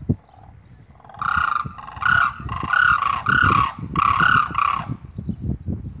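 Demoiselle crane calling: a run of about seven short, harsh calls, each dipping slightly in pitch, from about a second in until near the five-second mark.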